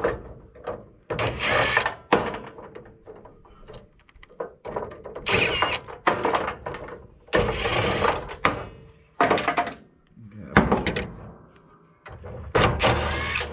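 Metal parts of an air-conditioning unit clattering and thudding as it is taken apart for scrap, in a string of separate knocks and scrapes with short pauses between them.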